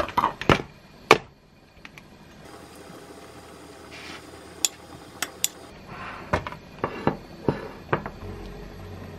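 Dishware knocks and clinks on a countertop, then a metal spoon tapping and scraping against a ceramic bowl as cooked rice is spread in it. The knocks come in two clusters: at the start and again about six to eight seconds in.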